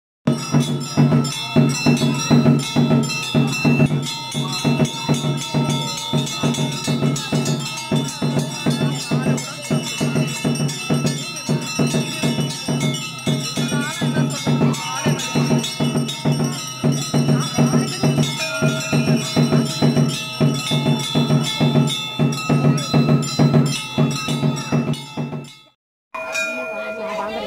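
Temple bells rung rapidly and without pause, a clanging beat of several strokes a second over long ringing tones, accompanying the arati lamp-waving; it cuts off abruptly near the end.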